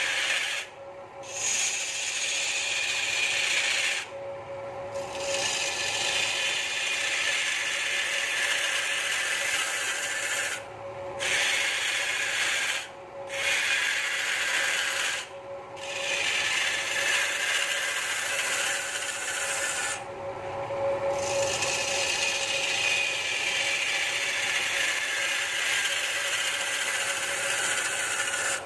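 Hand-held turning tool cutting a large spinning wooden stool blank on a belt-driven wood lathe: a steady rasping scrape, broken by several short pauses as the tool is lifted off the wood, with a steady hum from the lathe underneath.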